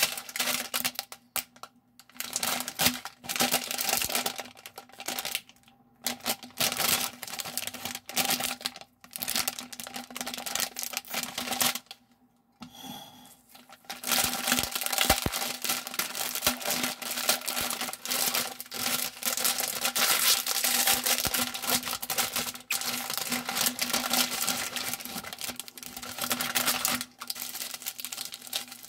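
Plastic Jin Ramen instant-noodle packet and its seasoning sachets crinkling as they are handled and opened: bursts of crackling at first, a short pause about twelve seconds in, then crinkling almost without break.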